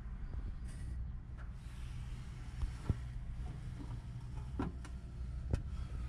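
Nissan Skyline R34 25GT Turbo's RB25DET turbocharged straight-six idling steadily, heard from beneath the car, with a few sharp knocks about three, four and a half and five and a half seconds in.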